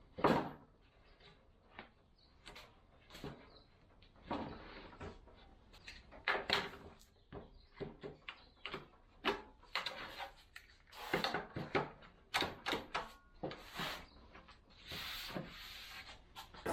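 Wood being handled and worked: irregular knocks, clunks and short scraping or rubbing strokes on boards, some strokes longer than others.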